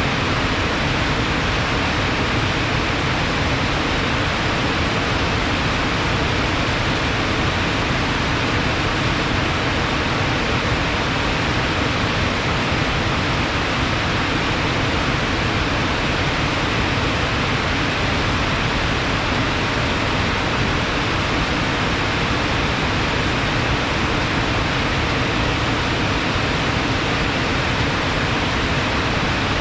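Heavy rush of fast-flowing water swollen by rain, a steady full roar with no breaks.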